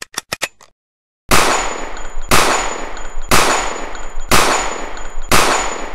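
A few quick clicks, then gunshots about one a second, five in all, each with a long fading tail.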